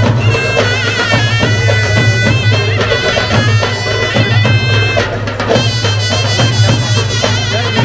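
Middle Eastern folk music: a reedy wind instrument plays a wavering, ornamented melody over a steady low drone, with some percussion.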